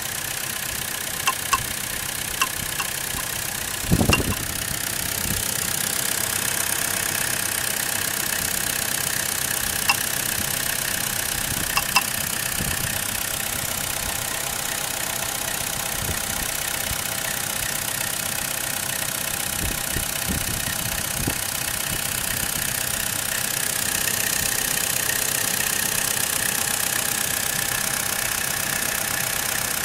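Opel Astra GTC J 1.4 turbo petrol engine idling steadily with a knock, which the owner suspects comes from the water pump or the flywheel. A heavy thump about four seconds in and a few sharp clicks.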